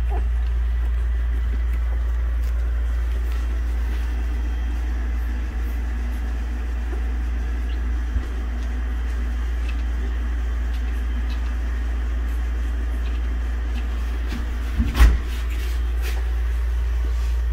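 Steady low hum, with a small click about eight seconds in and a single sharp thump about fifteen seconds in.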